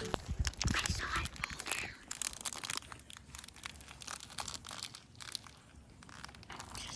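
Dry brush and leaves crackling and crunching in quick, irregular clicks, louder in the first couple of seconds and fainter after.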